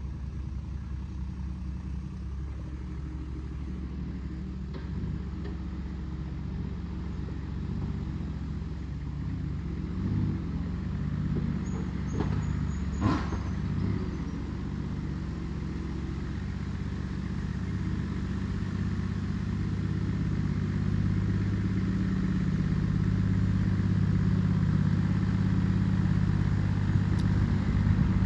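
Toyota LandCruiser 80 series, twin-locked with reduction gears, crawling over a rutted dirt and rock track. Its engine runs steadily and gets louder as it comes closer, with a few knocks about halfway through.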